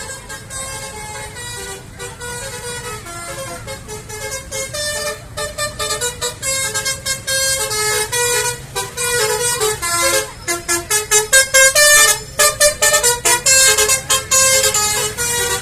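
Telolet basuri bus horn playing a melody of stepped tones, note after note. It grows louder and breaks into rapid, choppy short notes from about ten seconds in. A low steady bus-engine sound runs underneath.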